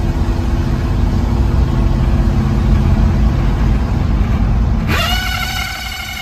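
Screaming noise from a 1968 Pontiac Firebird's speedometer while driving: a loud rumbling racket from the dash, then about five seconds in a shrill squeal that jumps up in pitch and holds steady. The owner suspects the speedometer head or its drive cable.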